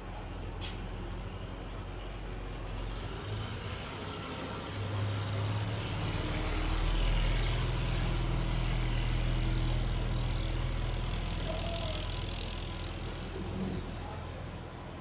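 A road vehicle's engine rumbling, growing louder over a few seconds and then fading away, with a single sharp click near the start.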